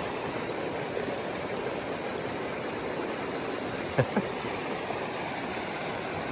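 Steady rushing noise of running water, with one short click about four seconds in.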